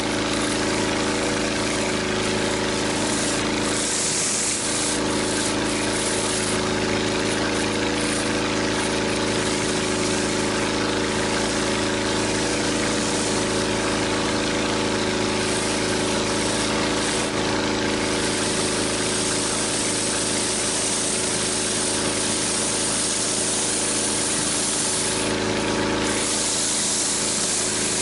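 Pressure washer engine running steadily, with the continuous hiss of high-pressure water spraying from a 14-inch surface cleaner's spinning bar over concrete.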